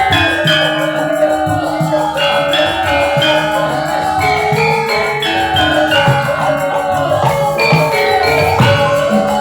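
Javanese gamelan music: struck bronze metallophones ring out in a steady run of pitched notes, with a wavering melodic line above them.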